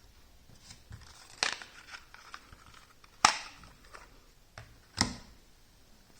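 Hands handling a silicone phone case and its packaging: three sharp clicks about one and a half seconds apart, with light rustling and small ticks between.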